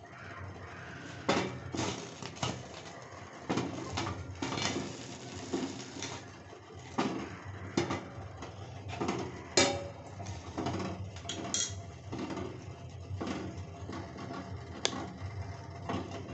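Steel plate lid on a stainless steel cooking pot clinking and tapping irregularly on a gas stove, a dozen or so sharp clicks, the loudest about ten seconds in, over a steady low hum.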